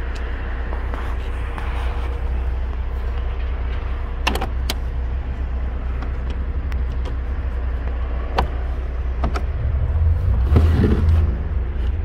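Trunk floor panel of a Mercedes-Benz SLK being handled and lifted, giving a few sharp clicks and knocks and a louder low knock near the end, over a steady low rumble.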